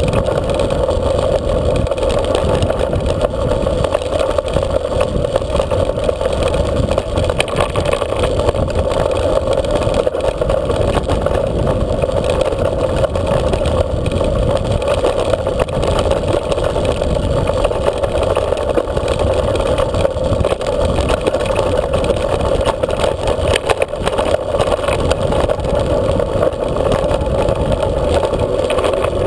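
Steady wind rushing over a bike-mounted camera while riding, with constant rattling and small knocks from the rough track surface.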